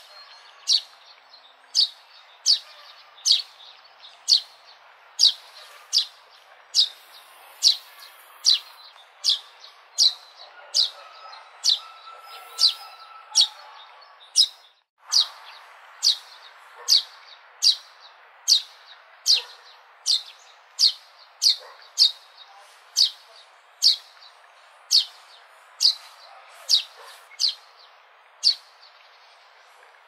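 Sparrow chirping over and over: one short, sharp, high chirp a little more than once a second, at a steady pace. The sound cuts out for a moment about halfway through.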